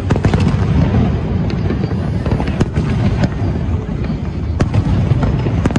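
Aerial fireworks shells bursting in quick succession: a continuous rumble of booms with sharp cracks scattered through it.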